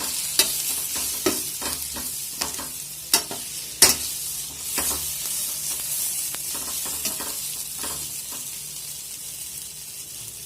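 Food sizzling in oil in a pan while fried bread balls are stirred through the spiced masala. A spoon scrapes and clinks against the pan, with two sharper knocks about three to four seconds in.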